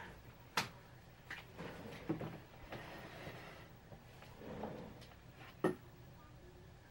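A person settling into an office chair at a desk: faint rustling and shuffling, with two sharp knocks, one about half a second in and one near the end.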